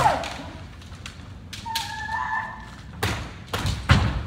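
Kendo sparring: a loud kiai shout cuts off at the start, a fainter held kiai sounds about two seconds in, then three sharp cracks and thumps of shinai strikes and stamping feet on the wooden floor near the end.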